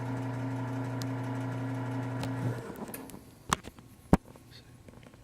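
Automatic key-marking machine running with a steady hum that stops about halfway through, followed by two sharp clicks.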